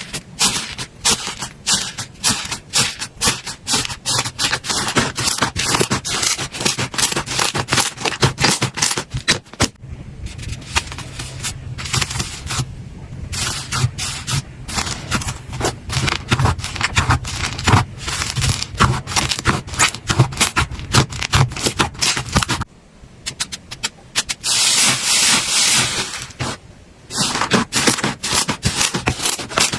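Slime being squished, poked and stretched by hand, making rapid runs of clicks and crackling pops broken by brief pauses, with a denser hiss for about two seconds near the end.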